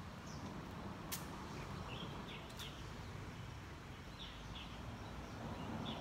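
Small birds chirping in short calls every second or two over a steady low outdoor hum, with a single sharp click about a second in.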